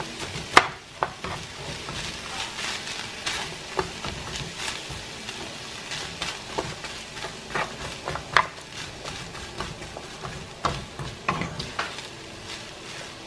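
Chicken, turkey sausage and sliced onions sizzling in a frying pan while being stirred with a spatula, with irregular scrapes and taps of the spatula against the pan. A sharp knock about half a second in is the loudest.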